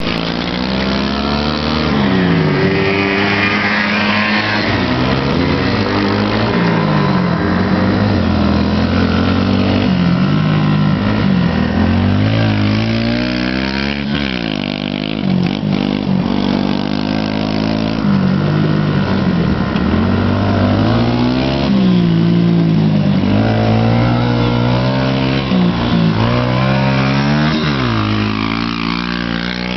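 Small youth sidecarcross motorcycle engine revving up and down over and over as the outfit rides a dirt track, its pitch rising and falling every few seconds with the throttle.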